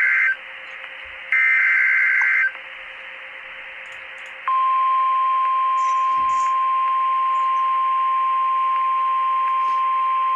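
NOAA Weather Radio alert signal: short buzzing digital SAME header bursts, the second about a second long, announcing a new warning. About four and a half seconds in, the steady 1050 Hz warning alarm tone starts abruptly and holds.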